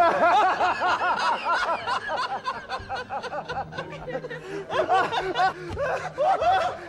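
A man laughing loudly and hysterically in rapid, repeated 'ha-ha-ha' bursts. The laughter thins out about halfway through, then builds again.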